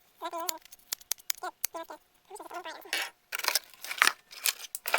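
Short broken snatches of a high-pitched voice, mixed with many sharp clicks and rattles of plastic toy pieces being handled, the clicks thickest between about three and four seconds in.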